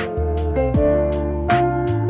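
Instrumental background music: a held, wavering melody over a steady bass, with drum hits.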